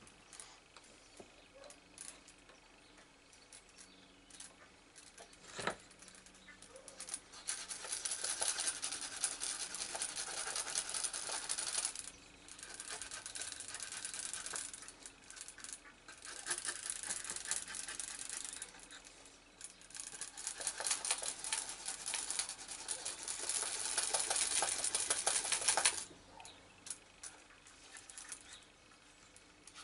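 Wooden edge slicker rubbed briskly back and forth along the edge of a leather pouch, burnishing it: four long runs of fast rubbing strokes between about eight and twenty-six seconds in, with a single click before them.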